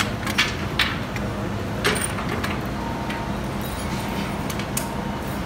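A few short, sharp metallic clicks and knocks from gear being handled on the roof of an enclosed lifeboat, the loudest about two seconds in, over a steady low rumble.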